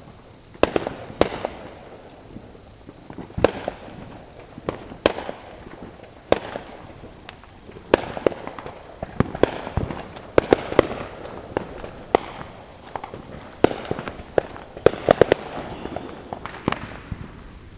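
Consumer fireworks going off: a long string of sharp bangs at uneven intervals, coming thicker in quick clusters around the middle and again about three-quarters of the way through.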